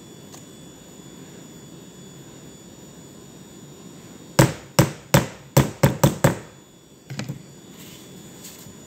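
A spoon knocked sharply against a metal loaf pan about seven times in under two seconds, shaking carrot cake batter off into the pan, followed by a few lighter taps.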